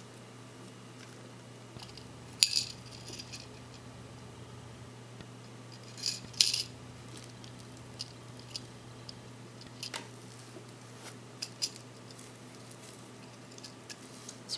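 Small metal watch parts clicking and rattling as spares are rummaged through and handled, a few light clinks every few seconds, over a steady low hum.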